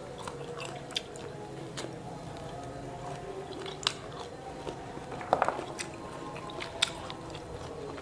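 Close-up eating sounds of fresh matoa fruit: chewing and biting the juicy flesh, with sharp crackles as the thin brittle shells are split open by hand. The loudest crackles come in a short cluster about five seconds in.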